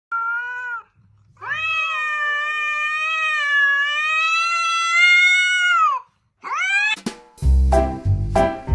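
A cat gives a short falling meow, then one long drawn-out yowl of about five seconds and a short rising call: a ginger cat yowling at another cat in a standoff. Upbeat music with a steady beat comes in near the end.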